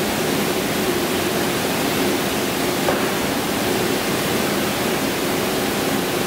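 Steady loud hiss of electronic noise from the recording's sound equipment, with a faint low hum beneath it; the poor sound is blamed on new equipment still being set up.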